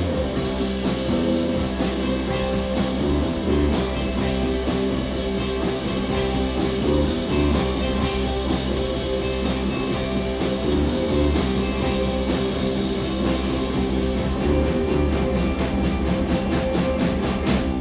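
Live rock band playing an instrumental passage with no singing: guitars, bass guitar and a drum kit keeping a steady beat.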